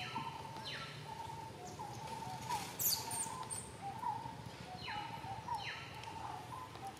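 Outdoor animal calls: a run of short, repeated chirps at about the same pitch, with a few quick falling squeals, the loudest just before three seconds in.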